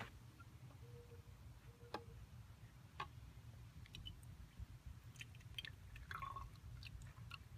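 Faint trickle and drips of water poured from a small plastic cup into the top of a toy John Deere tractor, mostly in the second half, with a few light taps scattered through.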